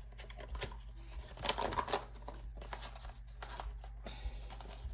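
Trading cards being pulled out of their packaging: scattered rustling and light taps of handling.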